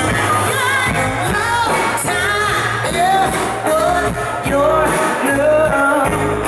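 A live rock and soul band playing, with electric guitars and drums under a singer's voice.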